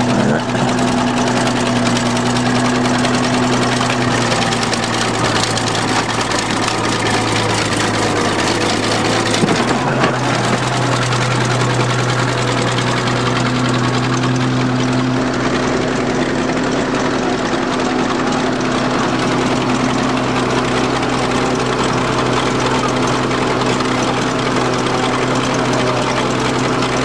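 Bulldozer's diesel engine running steadily, with a short sharp knock about ten seconds in; the engine note shifts twice, around ten and fifteen seconds in.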